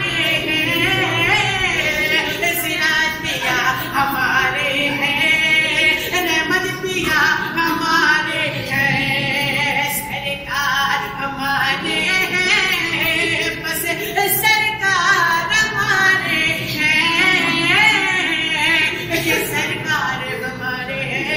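Devotional naat singing with musical accompaniment: a voice holding long, wavering sung notes without pause.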